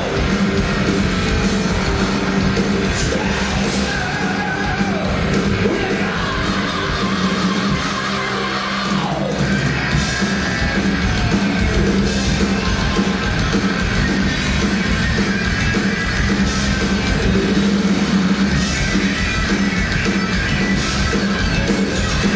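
Heavy metal band playing live, with electric guitar and shouted vocals; about nine seconds in a note slides down in pitch.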